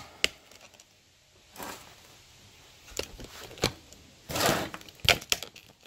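Glasses and chemical cans being handled and set down on a stainless steel workbench: scattered clicks and knocks, a brief rustle a little past the middle, and a quick run of sharp clicks near the end.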